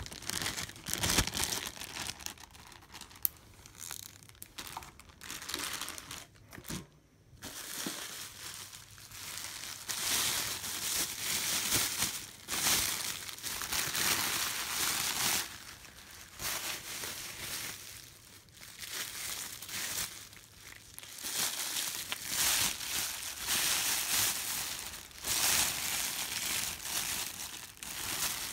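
Brown kraft packing paper and plastic zip-top bags crinkling and rustling as they are handled and crumpled, in irregular bursts with brief pauses.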